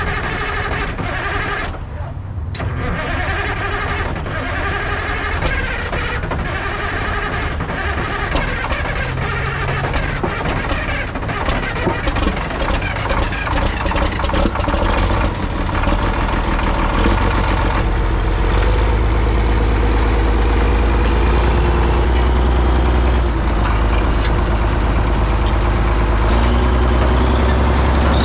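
Heavy diesel engine running, growing louder and steadier in its low end about sixteen seconds in.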